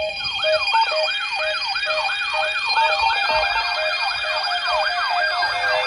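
Electronic siren in a rapid yelp, sweeping up and down in pitch about two to three times a second over steady alarm tones. A second overlapping yelp joins about halfway through.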